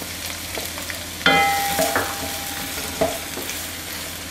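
Diced onion sizzling in hot oil in a non-stick wok, stirred with a wooden spatula that knocks against the pan a few times. About a second in, a sharp clink rings briefly; it is the loudest sound.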